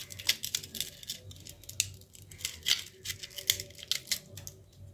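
Parts of a dismantled Nokia 1209 phone being handled: small plastic and metal pieces, the keypad sheet among them, make irregular clicks and light rattles that thin out near the end.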